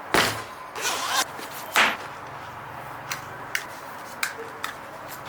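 Packaging being opened by hand: three quick rasping zips or rips in the first two seconds, then a few light clicks and taps of handling.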